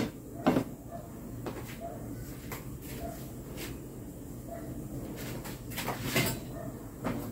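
A plate set down on a stone countertop with a clatter at the start, followed by scattered light knocks and clicks of dishes, and a louder knock about six seconds in.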